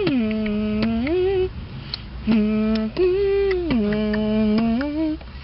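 A young woman singing a wordless tune, holding long notes that slide smoothly down to a low pitch and back up, with a short pause about halfway through.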